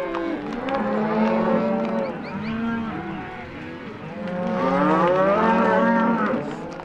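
A herd of cattle mooing and bawling, many animals calling over one another, with the loudest stretch of calls about two-thirds of the way through.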